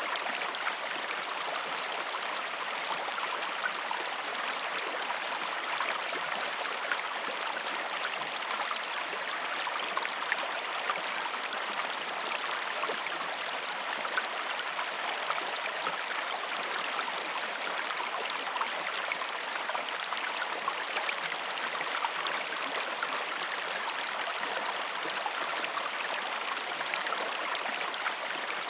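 A river or stream running steadily, with a continuous rushing and fine splashing and bubbling of water over stones.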